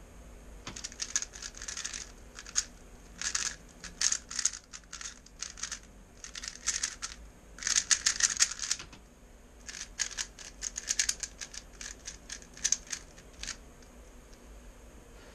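3x3 speedcube being turned quickly by hand: rapid runs of plastic clicking and clacking as the layers snap round, in bursts of a second or two with brief pauses between.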